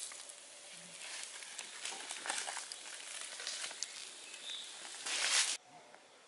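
Chicken sizzling and crackling on a wire-mesh grill over charcoal embers, its fat melting out of the meat onto the coals. Many small pops ride on the hiss, which swells to a louder hiss about five seconds in and then cuts off abruptly.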